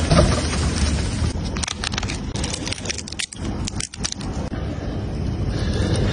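Grilled king crab shell and meat being pulled apart: a couple of seconds of sharp crackles and clicks in the middle, over a steady low rumble.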